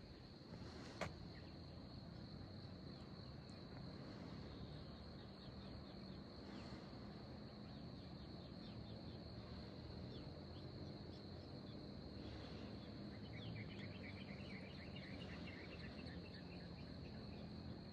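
Insects keeping up one steady high-pitched trill over a faint low outdoor hum. A single click sounds about a second in, and from about the middle a run of short, rapid chirps joins in, growing denser near the end.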